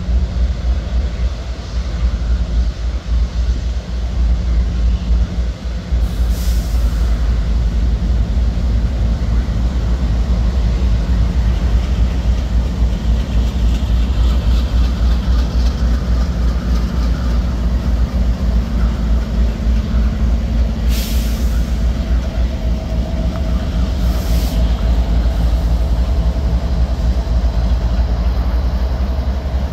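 CSX diesel freight locomotives pulling a manifest train slowly past, the engines giving a steady low throbbing rumble. Three brief hisses cut in along the way, and a faint steady whine joins past the middle.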